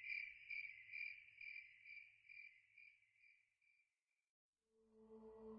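Faint cricket chirping, about two chirps a second, fading out about three-quarters of the way through. Near the end a low, steady ringing tone begins and swells.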